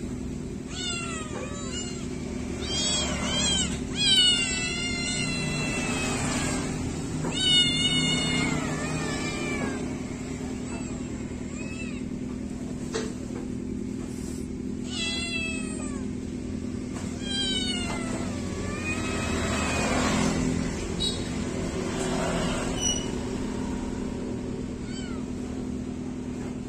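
Several freshly bathed kittens meowing over and over, high calls that rise and fall, some of them quavering, coming in bunches in the first ten seconds and again in the second half. A steady low hum runs underneath.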